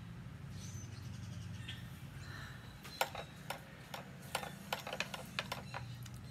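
An irregular run of light clicks and taps starting about three seconds in and lasting a few seconds, over a steady low hum, with faint high chirps in the first second.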